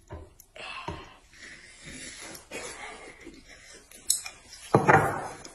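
Eating sounds at a table: noodles being slurped and chewed in short irregular snatches, with a sharp click about four seconds in and a short voiced sound near the end.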